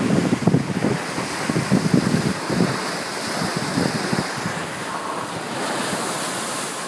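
Wind buffeting the microphone and water rushing past the hulls of a sailing trimaran moving fast, with gusty thumps in the first few seconds and a brighter hiss of spray about six seconds in.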